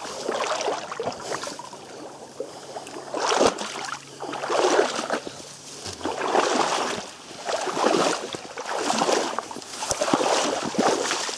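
A person wading waist-deep through water, each stride sending a surge of sloshing and splashing, roughly one every second or so.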